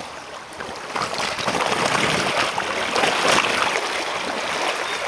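Floodwater rushing and splashing as it is forced under pressure through an opening filled to the top, with more spilling around its edges; it grows louder about a second in and then runs steadily.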